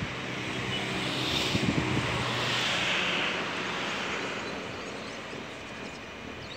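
Jet airliner's engines heard from a distance: a broad rushing noise that swells to its loudest about two to three seconds in and then slowly fades.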